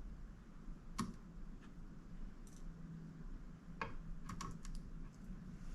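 A few faint, sharp clicks and taps of a screwdriver and small metal parts being handled inside a mini desktop PC as it is taken apart. One click comes about a second in, and a quick cluster comes around four seconds in.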